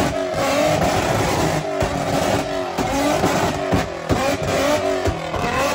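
2004 Infiniti G35's 3.5-litre VQ35 V6 revving hard on a chassis dyno, its engine note rising and falling. The exhaust fires a rapid, irregular string of loud bangs as a flame map dumps fuel that ignites in the exhaust and shoots out as fireballs. It cuts off suddenly at the very end.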